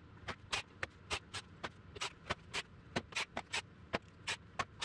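A hand ratchet being worked on fasteners of a small-block Chevy engine: a quick, slightly uneven run of sharp clicks, about four a second.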